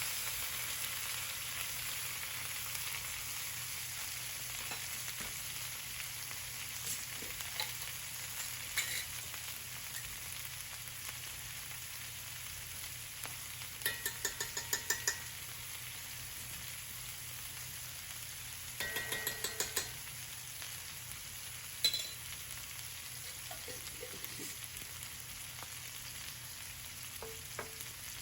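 Food sizzling steadily in a frying pan. Two short runs of rapid clicks come about halfway through, and a single knock follows a couple of seconds later.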